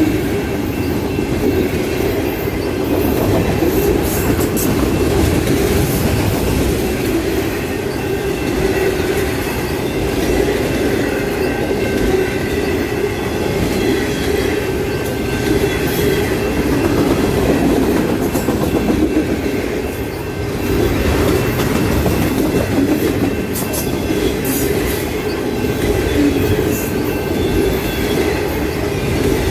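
Freight cars of a long train rolling steadily past: a continuous rumble of steel wheels on rail with scattered clicks and a faint, steady high-pitched wheel squeal.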